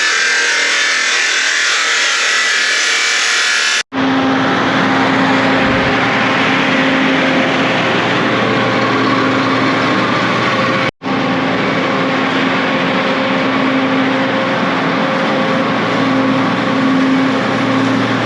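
A harsh hiss for about the first four seconds, then a steady engine hum with a constant pitch: the farm's standby generator running to power a welder.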